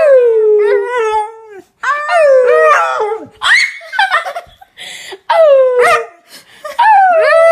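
A dog 'singing': a run of about five drawn-out howls, each sliding down in pitch, with short breaks between them.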